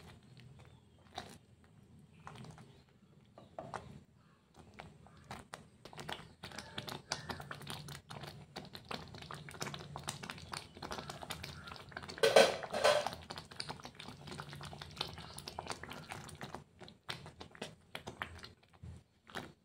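Thick pav bhaji bubbling in a non-stick pan, with irregular popping and spluttering clicks. A spatula stirs and scrapes through it, and there is a louder cluster of taps and pops about twelve seconds in.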